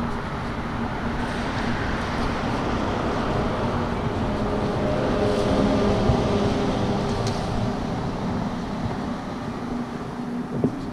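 Street traffic: a motor vehicle passes along the avenue, its engine hum and tyre noise growing louder toward the middle and fading again. A couple of sharp knocks come near the end.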